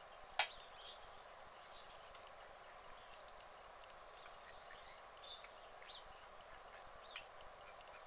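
Quiet outdoor ambience: a faint steady hiss with scattered short high chirps and ticks, and one sharp click about half a second in, with a weaker one just after.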